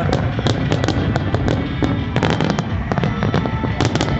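New Year fireworks barrage: many rapid crackling pops and bangs over a continuous low rumble.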